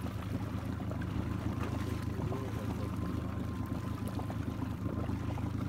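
Steady low rumble of an idling boat engine, with water lapping and trickling against the hull.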